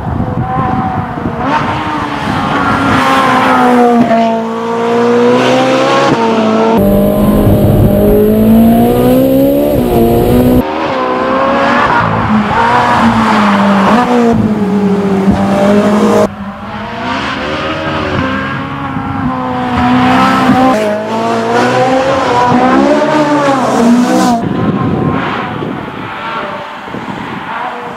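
Ferrari 458 Spider's naturally aspirated 4.5-litre V8 driven hard, revving up and dropping back again and again through gear changes. About seven seconds in there is a stretch of heavy low rumble lasting a few seconds.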